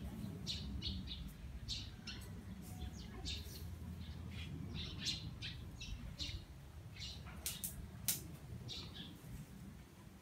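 Small birds chirping in short, repeated calls over a low steady rumble, with two sharp clicks about three-quarters of the way through.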